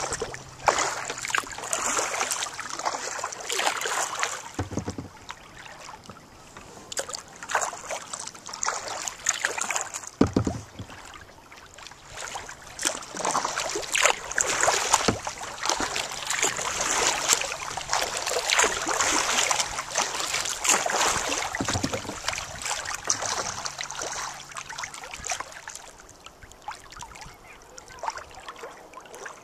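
Kayak being paddled: water swishing and splashing with each paddle stroke and lapping against the hull, coming in swells every second or two. A few low thumps sound, about three in all.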